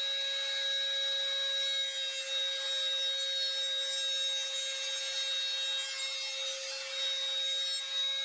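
Trim router mounted in a router table, running with a round-over bit and cutting the corners off a square hardwood strip as it is fed past the bit. The cutting noise starts about two seconds in and stops near the end, over a steady motor whine and a dust extractor running.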